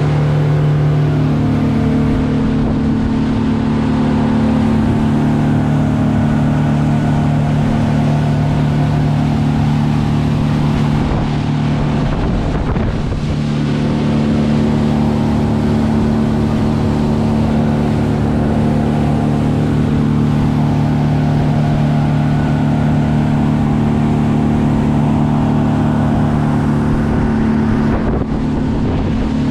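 Boat engine running steadily under way, a low even drone with water and wind noise, its pitch wavering briefly about twelve seconds in before settling again.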